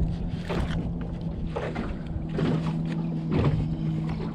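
A hooked mangrove snapper thrashing at the water's surface beside an aluminium jon boat: several short splashes and knocks, about one a second, over a steady low hum.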